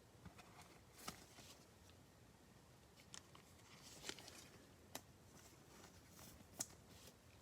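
Faint rustling and a few light clicks of trading cards being handled and slid against each other, six or so soft taps spread out over a low room hiss.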